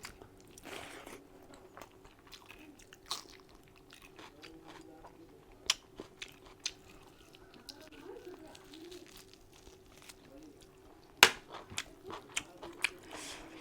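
Close-miked eating sounds of mutton curry: chewing and biting with scattered sharp crunches and clicks. The loudest crunch comes about 11 seconds in.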